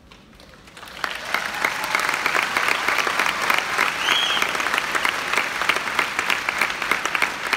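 Large audience applauding, building from quiet about a second in to sustained dense clapping.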